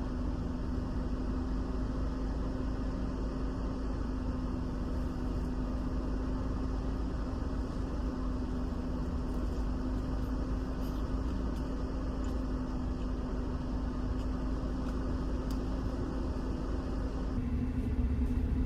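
A steady mechanical hum over a low rumble, holding one tone throughout.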